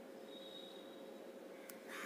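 Near silence: faint steady room hiss with a low hum, and a small click with a brief soft rustle near the end.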